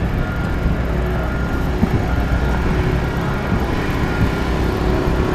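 Steady city street noise: traffic and a heavy low rumble, with a faint high tone coming and going.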